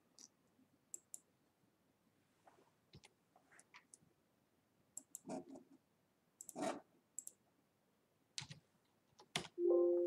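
Computer mouse clicks, scattered and sparse. Near the end comes a short Windows alert chime, sounding as a Revit warning about identical instances appears.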